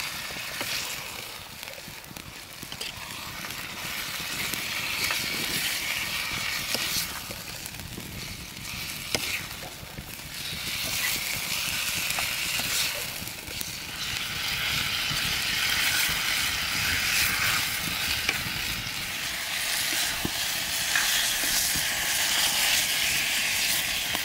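Chicken frying in hot oil in a pot, sizzling steadily while it is stirred and mixed with a spoon, with occasional scrapes and clicks of the utensil. The sizzle swells and eases as the pieces are turned.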